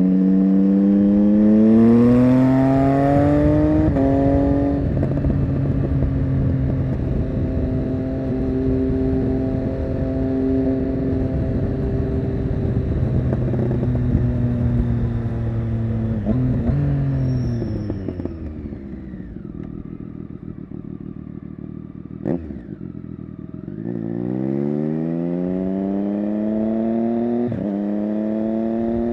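Triumph Street Triple 675 Rx's 675 cc inline-three with an SC-Project Conic exhaust, revs rising through the gears with a quick upshift about four seconds in, then holding a steady pace. After another shift the revs fall away on engine braking to a low, quiet run with one sharp crack. The revs then climb again and it shifts up once more near the end.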